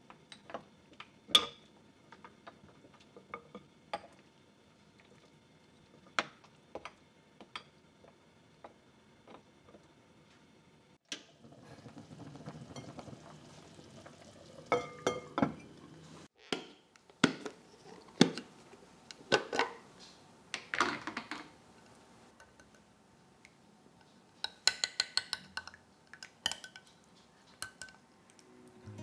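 A white ceramic spoon clinking against a clay pot as soup is skimmed, in scattered sharp clicks. Then the pot's ceramic lid knocks against the rim several times, and near the end a metal spoon clicks quickly against a glass dish while stirring a sauce.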